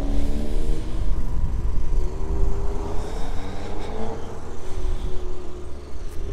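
A car's engine accelerating, its pitch rising steadily for about four seconds and then levelling off, over a steady low rumble.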